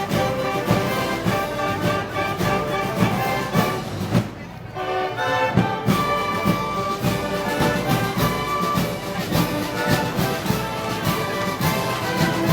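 Brass band music of the kind played for Moros y Cristianos festivals, trombones and trumpets over a steady drum beat. It drops quieter for about a second around four and a half seconds in, then carries on.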